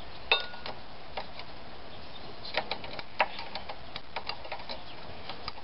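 Irregular sharp metallic clicks and clinks of a hand wrench working on bolts of the mower engine, the loudest single click about a third of a second in and small clusters of clicks in the middle.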